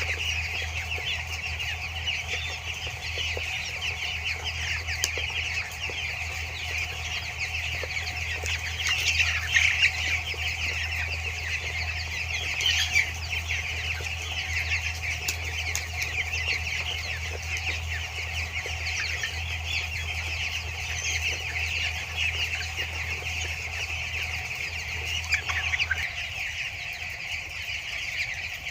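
A large flock of two-week-old broiler chicks cheeping continuously in a poultry shed. A steady low hum runs underneath and cuts off about 26 seconds in.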